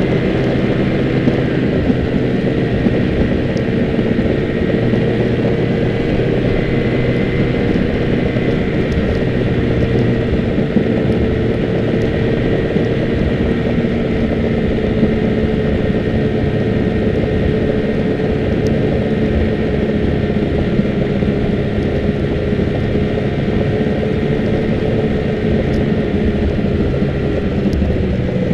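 Snowmobile engine running at a steady cruising speed: a loud drone with a higher whine above it, its pitch barely changing.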